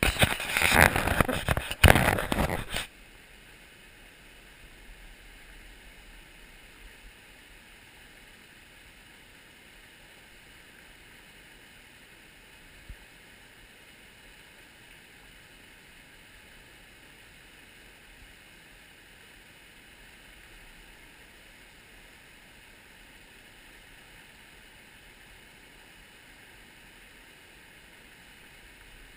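Small mountain brook running over rocks, a faint steady rush of water. For the first three seconds a loud, noisy burst covers it.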